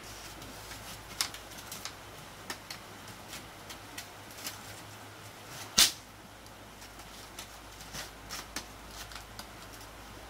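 Split bamboo strips clicking and rattling as they are woven by hand through a bamboo panel, with scattered small knocks and one sharper, louder knock about six seconds in.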